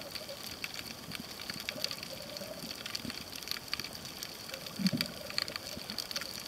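Underwater ambience heard through a submerged camera: a steady haze with a scatter of faint crackling clicks, and one dull low thump about five seconds in.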